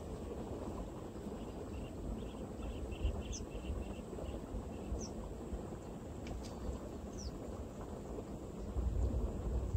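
Open-air rural ambience: a low rumble of light wind on the microphone, with a few short bird chirps and a brief run of quick high notes scattered through it.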